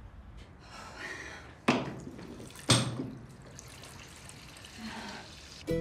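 Water at a bathroom sink: a tap running, with two sharper splashes about a second apart. Music starts right at the end.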